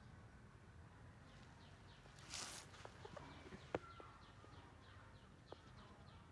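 Quiet outdoor background with a bird chirping over and over: short, high, falling chirps several a second, starting about a second in. A brief rustle comes about two seconds in, and a sharp click just before four seconds.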